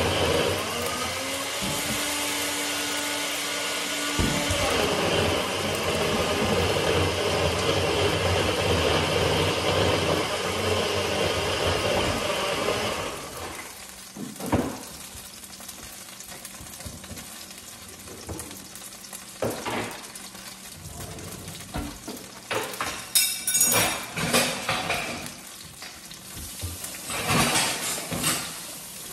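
A pancake sizzling in a nonstick frying pan under a steady whirring hum that cuts out about halfway through. After that the sizzling goes on quieter, broken by a few scattered knocks and clatters of utensils.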